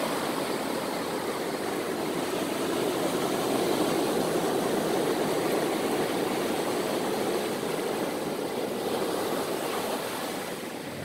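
Ocean surf washing over the shallows, a steady rush that swells a little midway and eases near the end.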